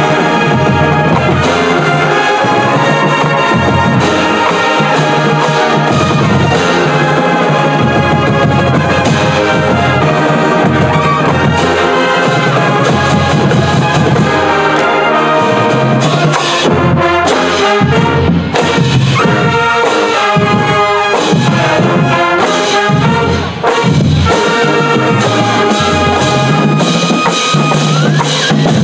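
Brass-band music with drums: trumpets and trombones playing over a steady percussion beat, with no singing.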